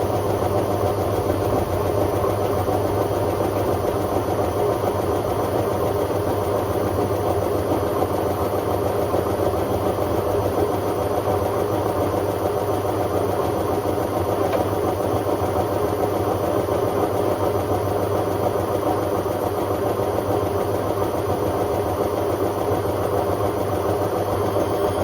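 Hotpoint Aquarius WMA50 washing machine spinning at a steady speed: a loud, even drum-and-motor drone with a strong low hum and no change in pitch.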